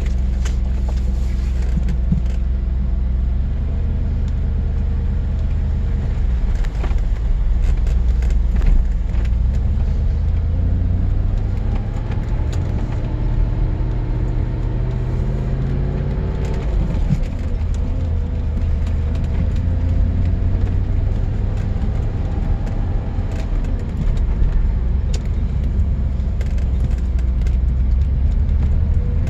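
Lancia Thema 8.32's Ferrari 2.9-litre 32-valve V8 running under way. The revs climb steadily for about four seconds midway, then drop off quickly, with a shorter rise later.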